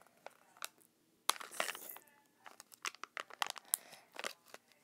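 Thin foil wrapper of a Kinder Surprise egg crinkling and tearing as fingers pick at it: an irregular run of sharp crackles, the loudest about a second and a half in and another cluster near the end.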